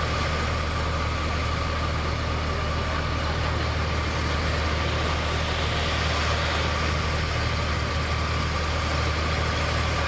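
Heavy dump truck's diesel engine running steadily at idle, a constant low drone with a steady higher hum over it.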